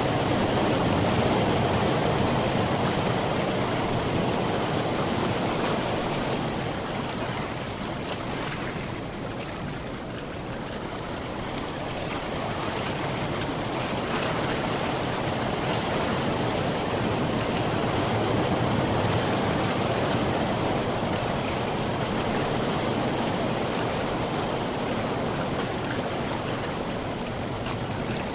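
Sea waves washing onto a shore in a continuous rushing surf, easing about a third of the way through and then building again.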